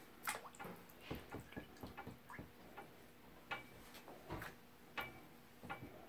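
Sandhill crane's bill dipping into a tub of water with fish in it: faint, irregular small splashes, drips and taps, about a dozen over a few seconds.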